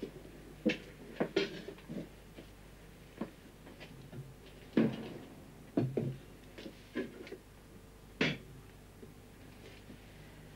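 Scattered small knocks, taps and rustles of things being handled around a kitchen table, about nine in the first eight seconds, the loudest about five and eight seconds in. Between them there is a faint steady room hum.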